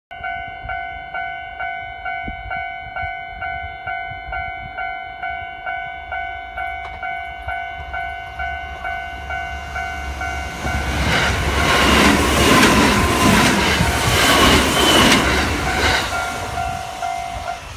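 Japanese level-crossing warning bell ringing about twice a second. A Kintetsu 3200-series electric train passes from about ten seconds in, its wheels rushing and clattering over the rails for about six seconds, louder than the bell. The bell keeps ringing after it has gone.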